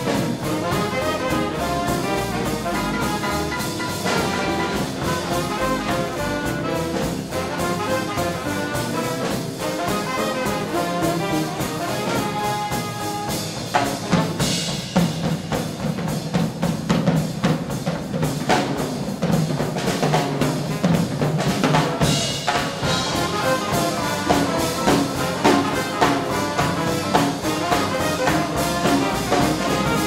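Swing big band playing an instrumental: saxophones, trumpet and trombone over piano, upright bass and drums. From about halfway the band plays louder, with sharp drum accents.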